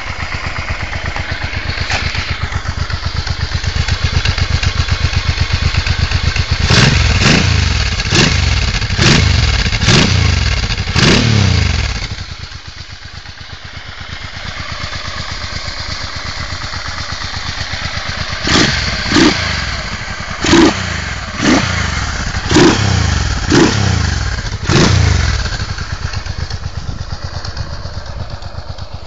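Honda Hawk GT's 650 cc V-twin running through a stainless-steel Laser Pro Street exhaust, with open K&N pod air filters. It idles, then is blipped in two sets of quick throttle revs, about six and then about seven, each falling back to idle. The idle sags briefly between the sets.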